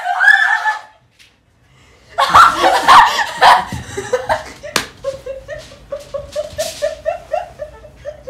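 Girls' voices: a short outburst, a second of quiet, then loud shrieking laughter. About five seconds in there is a single sharp smack of a hand, followed by steady rhythmic laughing, several short bursts a second.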